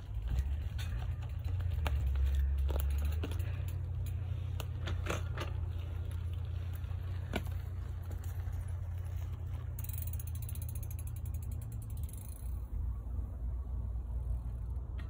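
Bicycle freewheel ticking: a dense, fast run of clicks for a couple of seconds past the middle as the bike coasts past, with scattered single clicks earlier. A steady low rumble runs underneath.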